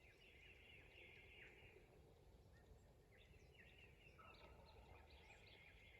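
Wild turkey gobbler gobbling a few times, very faint.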